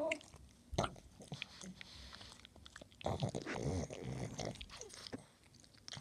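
Pug chewing and gnawing on a ball toy, with a sharp click about a second in and a louder stretch of chewing from about three seconds in.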